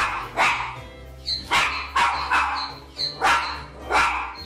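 Small white dog barking repeatedly: about seven short, sharp barks in uneven groups.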